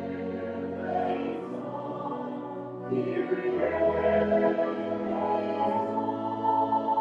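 A choir singing slowly, with long held notes and slow changes of chord.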